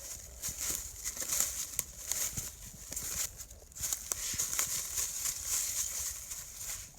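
Footsteps and rustling through forest leaf litter and undergrowth, an uneven crunching and swishing with scattered small snaps.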